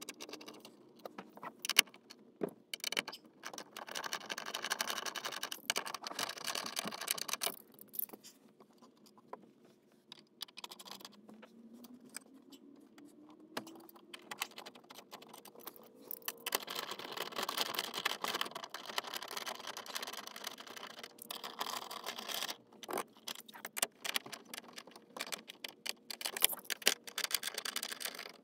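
Metal clicks, clinks and rattling from hand tools and shifter hardware as an aftermarket short shifter is bolted back into a Honda Fit's console. There are two longer spells of busy scratchy rattling among the separate clicks.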